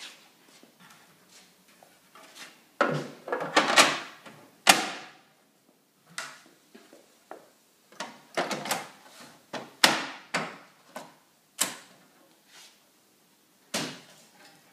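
Plastic side panels of a Pitney Bowes DI600 folder inserter being clipped back onto the machine: clusters of sharp clicks, knocks and rattles as the panels are pushed and snapped into place, with single knocks later on.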